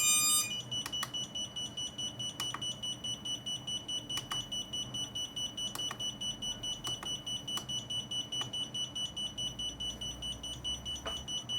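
Electronic buzzer alarm: a single high, steady-pitched tone beeping rapidly and continuously, about five beeps a second, with a few faint clicks.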